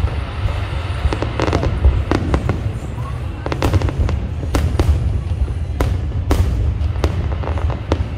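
Aerial fireworks bursting: a string of sharp bangs at irregular intervals, several coming in quick clusters, over a steady low rumble.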